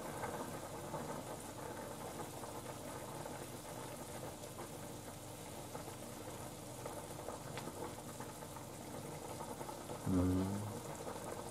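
Beef and vegetables simmering in a saucepan of water on an induction hob: a steady soft bubbling, with chopsticks moving in the pot. A short hummed voice about ten seconds in.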